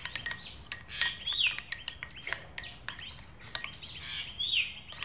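Small birds chirping repeatedly, short calls that sweep up and down in pitch, with light clicks in between.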